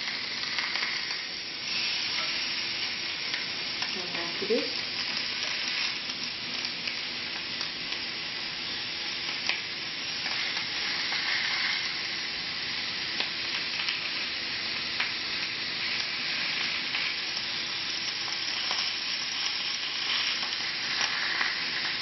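Marinated chicken breast pieces sizzling on a hot cast-iron stovetop grill, a steady even hiss as the oiled side sears. The sizzle is the sign that the grill is hot enough to burn dark grill marks into the underside.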